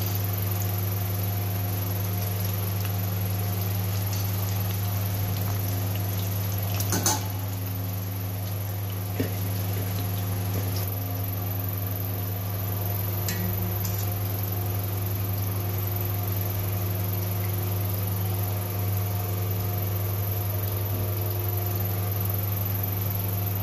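Battered okra pakoras deep-frying in hot oil in a steel karahi, a steady sizzle with fine crackling, over a steady low hum. A sharp knock sounds about seven seconds in and a lighter click about two seconds later.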